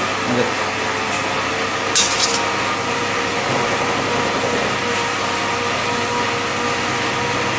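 Steady rushing kitchen noise with a faint constant hum, and one short metallic clink about two seconds in, fitting a steel ladle touching the big biryani pot.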